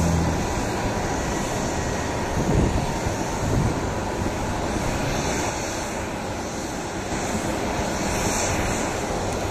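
Distant jet noise of an Airbus A320-214's CFM56 engines on short final and flaring to land: a steady rushing sound, mixed with wind buffeting the microphone in a few low gusts.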